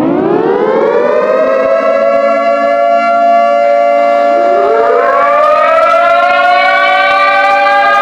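Emergency alert siren winding up and holding a steady wail. A second siren tone slides up about four and a half seconds in and settles just above the first, the two sounding together.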